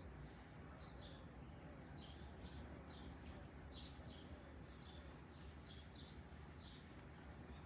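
Faint, short, high-pitched bird chirps repeating about once or twice a second, over a steady low background rumble.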